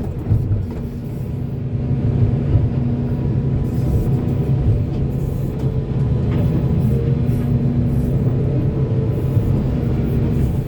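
Volvo excavator's diesel engine running steadily, a continuous low drone.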